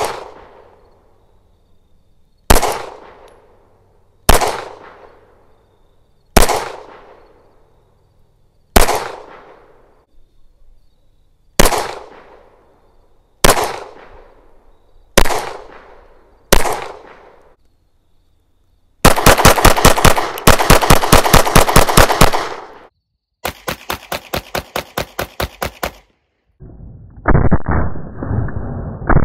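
9mm handgun shots: nine single shots about two seconds apart, each with a long echoing tail. About nineteen seconds in, a fast string of shots runs for about four seconds, then a quieter fast string, then a duller, muffled run of bangs near the end.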